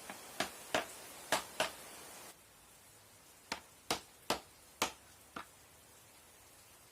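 A nail being tapped with a small hammer: two runs of light, sharp taps, each of four or five taps at about two or three a second.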